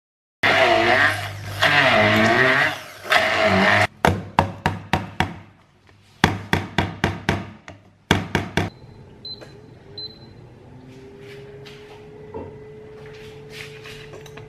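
Hand-held immersion blender running in a tall beaker, puréeing ginger and shallots with olive oil, its motor pitch wavering as it works through the paste. Then several runs of short, sharp bursts follow in quick succession, and near the end a few light knocks.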